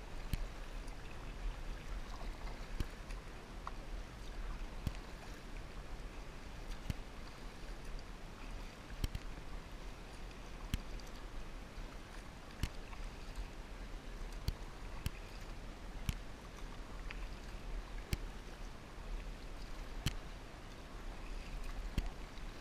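A kayak being paddled with a double-bladed paddle: blades dipping and pulling through the water in an even rhythm, with a short sharp click about every two seconds over a steady wash of water noise.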